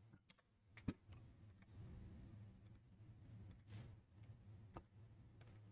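Faint, scattered clicks of a computer mouse and keyboard, one sharper click about a second in, over a quiet low hum.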